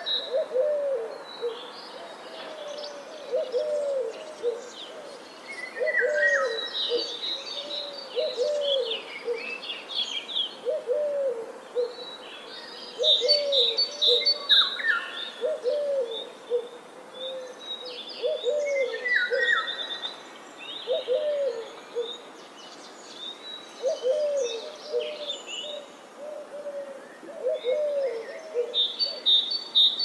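Several birds calling together: a low hooting call repeated about once a second, with higher chirps and twittering that come and go every few seconds.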